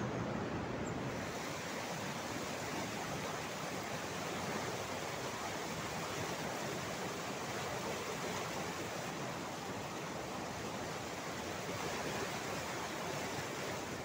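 River water in heavy flow rushing over low rock waterfalls and rapids: a steady, unbroken rush of white water.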